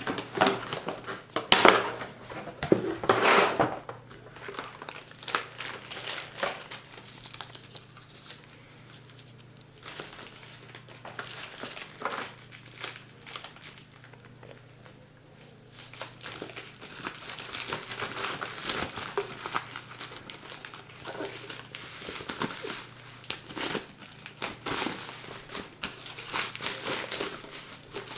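Packaging crinkling and rustling as a boxed desktop speaker is unwrapped from its packing by hand. Louder handling in the first few seconds, a quieter stretch in the middle, then steady crinkling again.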